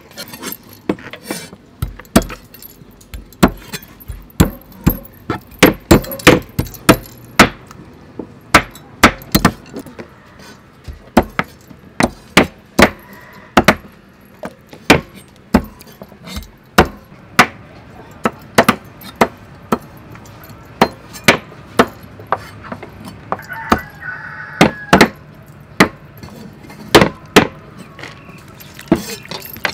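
Meat cleavers chopping raw chicken feet on wooden chopping blocks: sharp, uneven chops about two a second, two people chopping at once.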